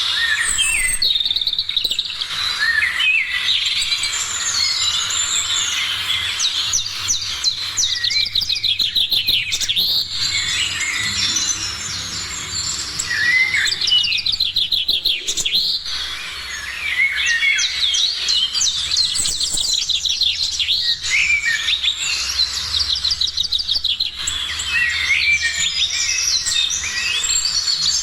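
Several songbirds singing and chirping at once in a morning chorus, short whistled and slurred notes overlapping with rapid trills of quickly repeated notes.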